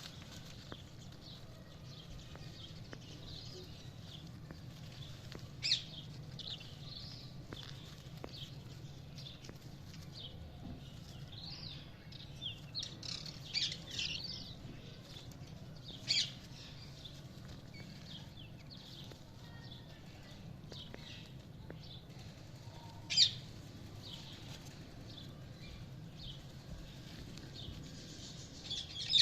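Budgerigars chirping on and off with short high calls, a few sharper and louder than the rest, with a busier run of chirps midway, over a steady low hum.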